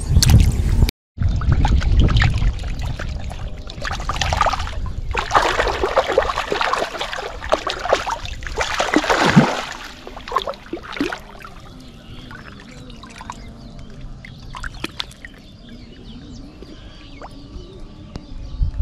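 Water splashing and trickling as a hooked catfish thrashes on a line in shallow river water. The splashing is busiest in the middle, then settles into quieter lapping with a few small splashes.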